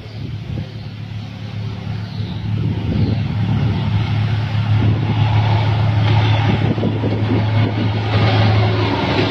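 Diesel locomotive approaching at the head of a container freight train, its engine's steady low drone growing louder as it nears.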